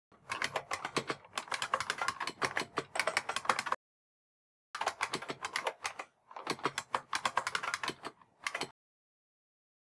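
Rapid keyboard-typing clicks, a sound effect, in three runs of a few seconds each with dead silence between them.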